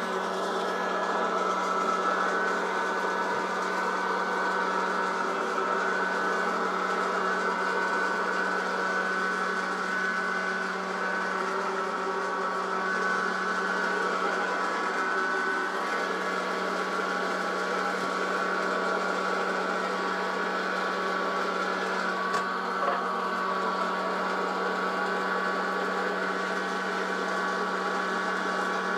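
Presto Fountain hot air popper running steadily, its fan motor humming as it blows hot air over the kernels before they start to pop. A faint knock about three-quarters of the way through.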